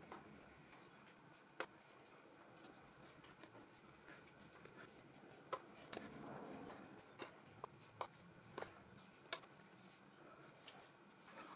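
Faint scratching of a flat bristle brush laying paint onto paper, with a handful of sharp, irregularly spaced light clicks.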